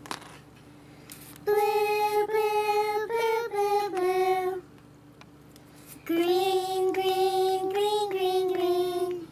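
A high, child-like singing voice in a background song holds steady notes in two melodic phrases of about three seconds each, with a short pause between; a small click comes right at the start.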